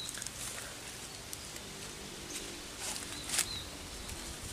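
Outdoor streamside ambience: a short high chirp repeats a few times, with a few brief rustles of someone moving through the undergrowth.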